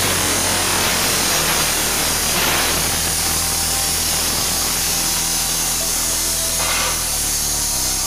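Abrasive chop saw cutting through steel hollow-section tube: a steady, harsh grinding over the motor's hum, easing slightly about seven seconds in.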